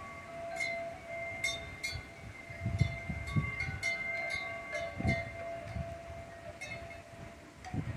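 Wind chimes clinking and ringing in gusty storm wind, several tones held after each strike. Low gusts buffet the microphone a few times.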